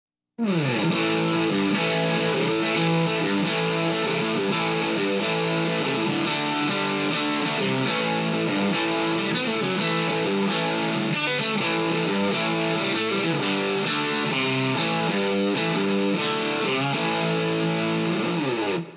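Electric guitar played through a Vox Valvetronix AD50VT-XL modeling amp on its Crunch setting, a classic overdriven Vox tone. A riff of shifting chords and notes at a steady level starts about half a second in and stops abruptly near the end.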